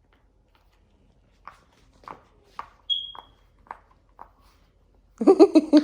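Silicone pop-it fidget toy bubbles being pressed, about seven soft pops roughly half a second apart. Near the end a loud, high, wavering vocal cry starts.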